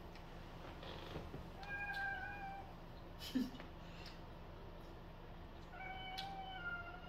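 A cat meowing in two long drawn-out calls, each held on a steady pitch, one about two seconds in and a longer one starting near the end. A single short knock sounds between them.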